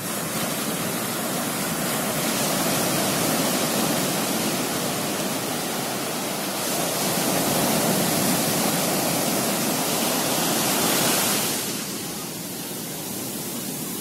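Sea surf on a sandy beach: small waves breaking and foam washing up the sand in a steady rush that swells twice and eases near the end.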